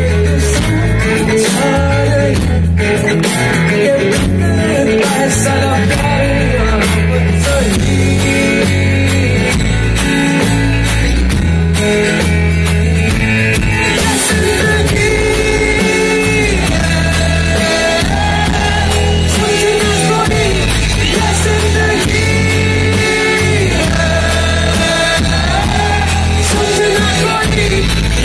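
Live rock band playing loud: electric guitars, bass and drums, with a melody line carried over a heavy, steady bass.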